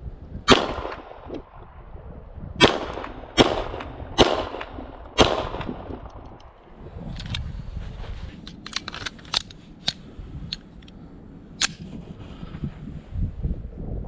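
Five shots from a Tristar C100, a CZ75-clone 9mm pistol, fired in the first five seconds at irregular spacing. A reload follows: a run of small metallic clicks as the magazine is swapped, ending in one sharp clack near the end. A low wind rumble on the microphone runs underneath.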